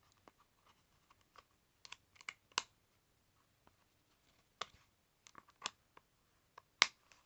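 Snap-button fastener on a knife sheath being snapped open and shut, a series of sharp separate clicks, the loudest near the end.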